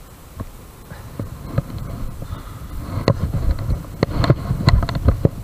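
Handling noise on a body-worn camera: a spinning reel being cranked, with a fleece sleeve rubbing close to the microphone and faint clicks. About three seconds in, a run of sharp knocks and thumps begins as the camera is jostled, and these are the loudest sounds.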